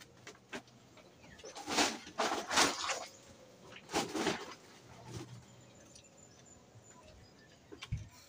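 Rustling and handling noises in a bamboo loft, in a few bursts during the first half. Near the end come a couple of low thumps as a man steps down from the bamboo structure.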